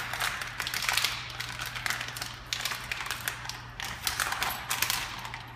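Hard plastic parts of an automatic soap dispenser and its soap pouch being handled and pulled apart by hand, giving a quick irregular run of clicks, taps and rustles. A low steady hum runs underneath.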